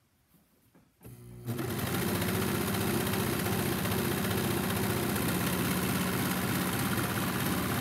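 Four-thread serger (overlock machine) starting about a second in and then running steadily at speed with a fast, even stitching rhythm as it sews the last inches of a seam.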